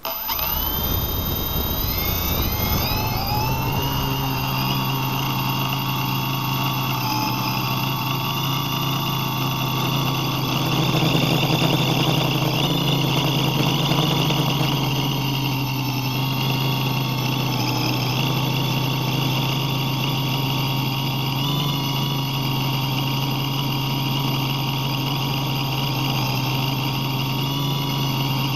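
FPV multirotor's electric motors and propellers spinning up from rest with a rising whine, then a steady buzzing drone in flight, heard through the on-board keychain camera. It swells a little louder about halfway through.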